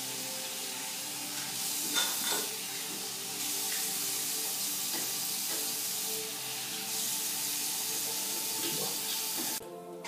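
A bathroom tap running into a basin while someone washes at it, over background music with held notes. The running water cuts off suddenly near the end.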